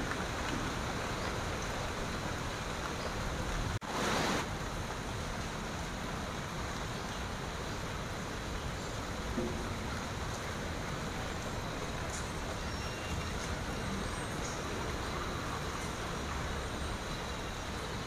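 Steady rain falling on tree leaves, a continuous even hiss, broken about four seconds in by a brief dropout and a short louder whoosh.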